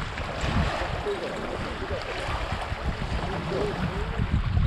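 Wind gusting on the microphone over the steady wash of small waves lapping in shallow lake water.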